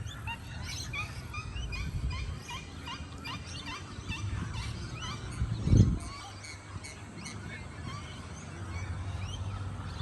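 Many birds calling together in rapid short chirps. A single dull thump about six seconds in is the loudest sound.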